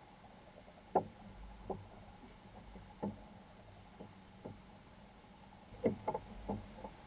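Quiet, scattered knocks and slaps of water against the hull of a floating Waverunner personal watercraft as it rocks, with a small cluster of knocks near the end.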